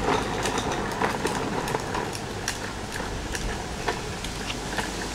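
Wind buffeting the microphone with a steady low rumble, over scattered light ticks of footsteps on a sidewalk.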